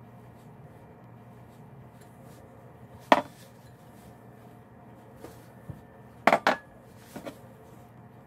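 Sharp knocks and clinks of kitchenware being handled: one loud knock about three seconds in, two quick knocks a few seconds later, and a fainter one near the end.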